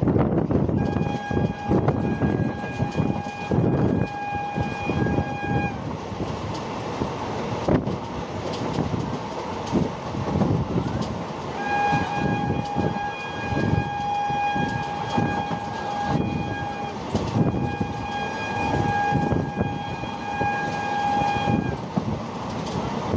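Train horn sounded in three long steady blasts, each about four to five seconds, the last two with only a short break between them. Under the horn, the train runs with a continuous rumble and the clatter of wheels over the track.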